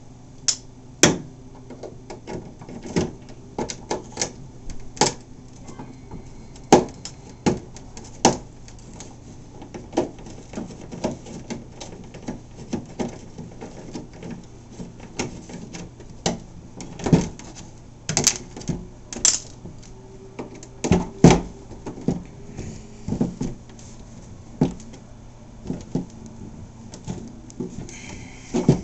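Irregular sharp clicks and taps of a small precision screwdriver and loose screws against a hollow plastic RC boat hull as the screws are worked out, with a few louder knocks now and then.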